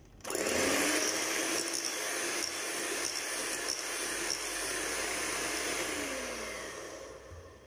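Kenwood electric hand mixer running, its beaters whipping cream and condensed milk in a glass bowl. The motor starts suddenly, its hum wavering in pitch as the beaters work, and dies away near the end.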